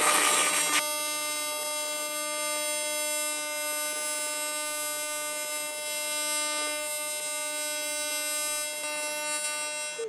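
Twin carbon arc welding arc running on AC at about 300 Hz from a Miller Dynasty inverter: a steady, high-pitched electric buzz. It is rougher and hissier for the first second before settling, and cuts off right at the end as the arc is broken.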